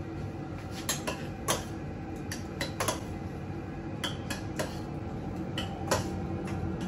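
Metal spoons clinking and scraping in small stainless steel saucepans as they are stirred: irregular light clinks over a steady low background hum.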